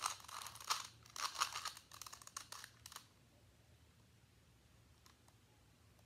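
Plastic Rubik's-style puzzle cube being twisted quickly by hand: a dense run of clicks and rattles from the turning layers for about three seconds, then only a few faint clicks.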